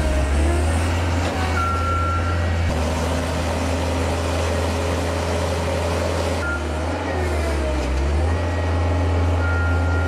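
Compact track loaders' diesel engines running steadily under load while working tree stumps out of the ground, first a Gehl, then a Mustang 1750RT. A few short high tones sound over the engine.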